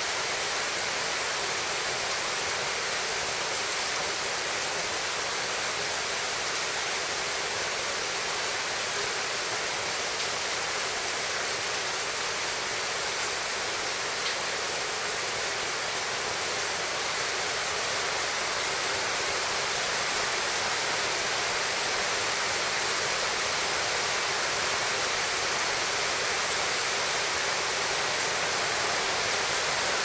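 Forest stream running, a steady even rush of water.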